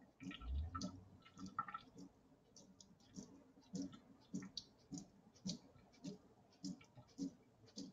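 Wet wool fleece being shaken out in a collapsible colander over a stainless steel sink: a faint, short patter with each shake, coming regularly about twice a second from a couple of seconds in, after a soft low thump just after the start.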